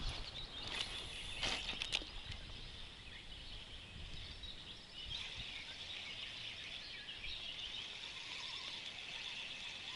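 Quiet outdoor ambience with faint, steady high birdsong in the background and a few short clicks or rustles in the first two seconds.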